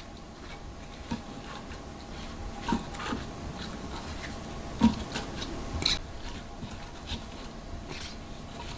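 Soft, scattered knocks and rubbing as a gloved hand packs whole radishes, a cloth spice pouch and pears into an earthenware onggi crock.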